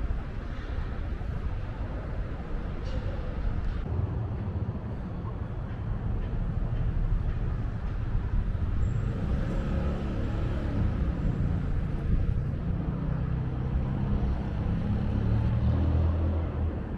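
City street traffic with a heavy vehicle's engine rumbling close by, growing louder through the second half and falling away near the end.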